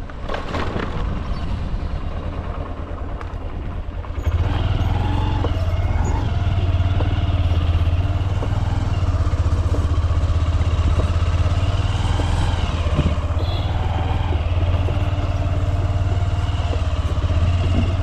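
Motorcycle engine running while riding at low speed, heard from on the bike, getting louder from about four seconds in.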